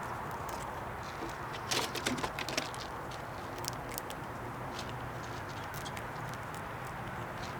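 A squirrel at a bird house feeder handling and cracking peanuts: a quick cluster of sharp clicks and scratches about two seconds in, then scattered single ticks, over a steady background hum.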